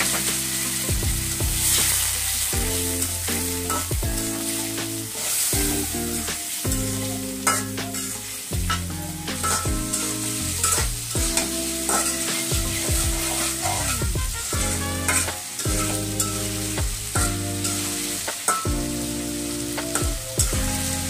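A metal spatula stirring and scraping potatoes and spice paste around an aluminium karahi, with a steady sizzle as the masala fries in oil and a splash of water to cook it down.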